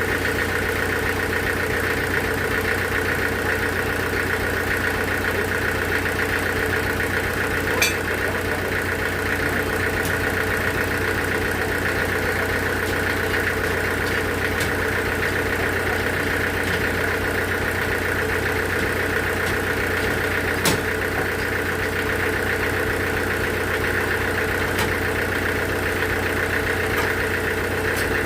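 Sawmill machinery running steadily with a constant hum and whine. There is a sharp click or knock about 8 seconds in and another about 21 seconds in.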